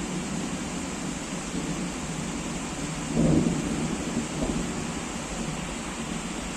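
Steady heavy rain hissing, with a low rumble of thunder that swells suddenly about three seconds in and rolls off over the next couple of seconds.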